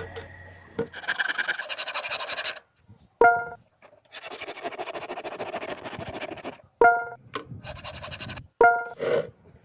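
Rasping, scratching noise in three stretches of one to two and a half seconds each, broken by three short, bright pitched tones.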